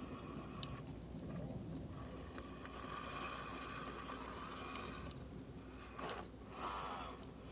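Radio-controlled rock crawler's electric motor and geared drivetrain whining as it creeps along, with scraping, crunching and scattered clicks.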